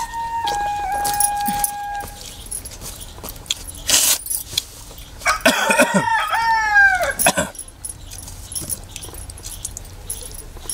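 A rooster crows once, about five seconds in: a call of about two seconds that falls in pitch at its end. A brief sharp noise comes about a second before it.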